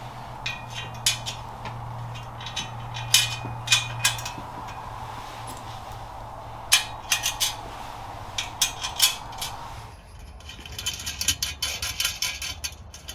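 Metal parts clinking and tapping in irregular clicks as a small propane burner and its fasteners are fitted into a steel cooker frame by hand. A steady low hum runs underneath until about ten seconds in.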